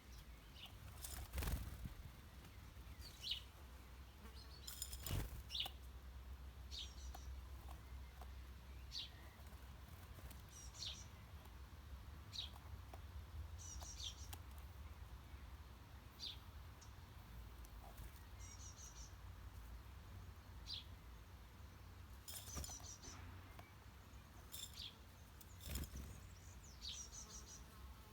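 Small birds giving short, high chirps, scattered irregularly, with a few brief sharp rustles or taps among them and a faint low rumble underneath.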